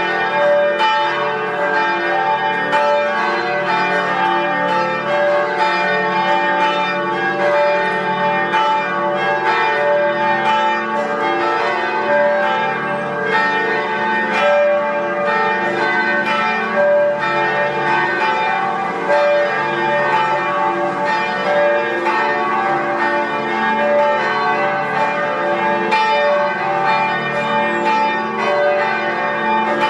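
Several church tower bells pealing together, a continuous stream of rapid, overlapping strikes that ring on into one another.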